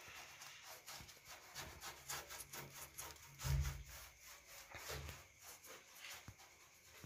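A hand rubbing and scratching at a car's fabric roof lining in quick, repeated strokes. A dull thump comes about three and a half seconds in.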